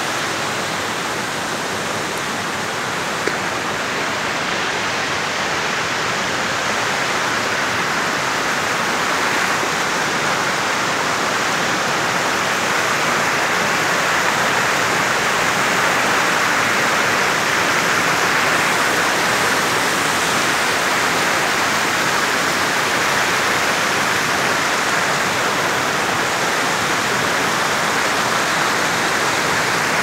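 Rocky mountain creek rushing over boulders in white-water rapids: a loud, steady rush of water that grows a little louder partway through.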